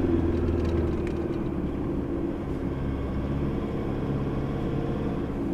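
Four-wheel-drive vehicle driving steadily, its engine humming under road and tyre noise; the engine note drops slightly about a second in.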